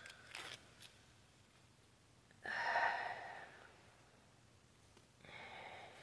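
Two heavy sighing breaths: a strong exhale that starts sharply about two and a half seconds in and fades over a second, and a softer one near the end, after a few faint clicks at the start.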